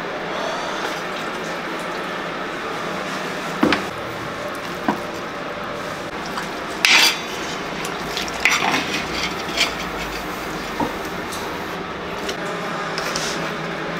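A metal skimmer scraping and clinking against the inside of a kazan as cooked meat and potatoes are lifted out onto a wooden board, with scattered sharp knocks, the loudest about seven seconds in. A steady hum runs underneath.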